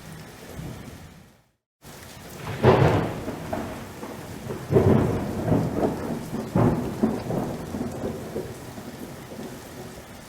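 Thunderstorm: steady rain with a peal of thunder that cracks and rumbles in several loud swells, fading out over several seconds. The sound cuts out to silence briefly about a second and a half in.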